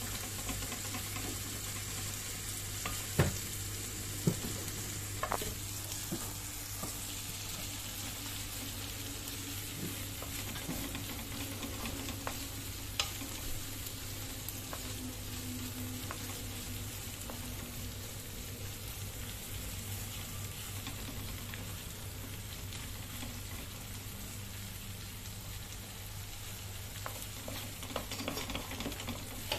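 Corned beef with onions and garlic sizzling as it fries in a nonstick pan, stirred with a wooden spatula. The spatula knocks sharply against the pan a few times, about three to five seconds in, once around the middle and again near the end.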